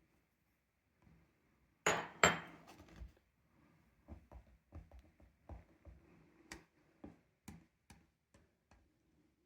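Small tools and hardware being handled on a hard surface: two sharp, ringing clinks about two seconds in, then a run of light taps and knocks.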